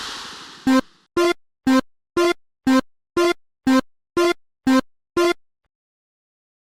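A noise burst fading out at the start, then a railroad crossing warning bell ringing ten even strokes about twice a second, which then stops.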